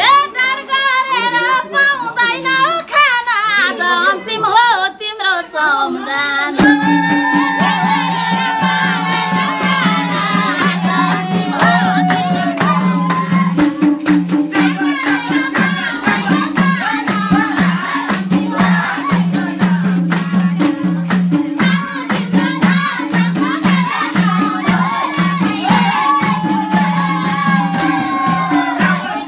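Live Nepali folk dohori music: a sung melody for the first six seconds or so, then an instrumental passage with a steady rhythmic beat, a melody line and shaken percussion.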